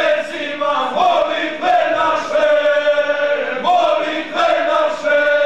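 A group of voices singing a traditional Montenegrin folk chant, with long held notes and a new phrase every second or two.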